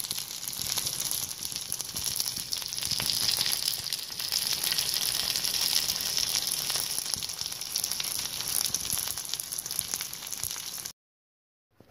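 Panko-and-Parmesan-crusted chicken tenderloins frying in hot oil in a pan: a steady sizzle full of fine crackles, which stops suddenly about a second before the end.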